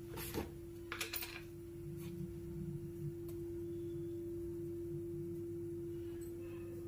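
A steady hum held on one pitch, with a few light clicks in the first second or so.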